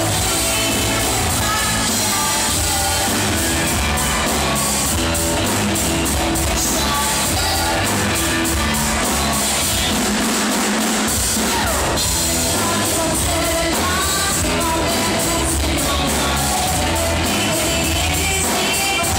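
Rock band playing live with a woman singing lead over drums and bass; the low end drops out briefly about ten seconds in.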